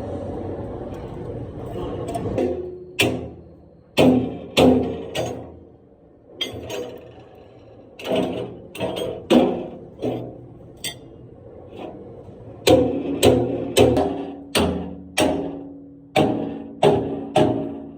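A hammer striking steel again and again at an irregular pace, each blow ringing and fading. A steady noise comes before the first blow, about two seconds in.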